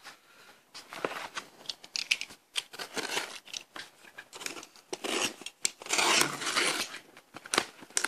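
Utility knife slicing through packing tape on a cardboard box: short scratchy drags and clicks, with a longer, louder cutting stroke about five seconds in.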